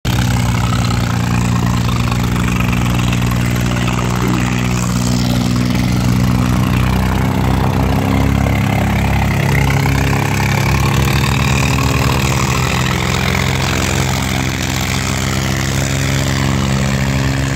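Sonalika DI 50 4x4 tractor's diesel engine running steadily under load as it hauls a full water tanker through soft ploughed soil.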